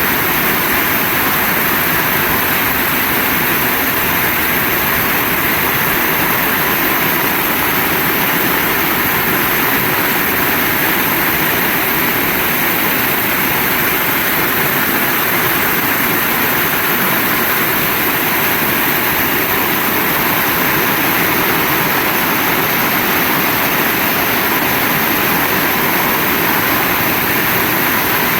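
Heavy rain pouring down: a dense, steady hiss with no break or change in strength.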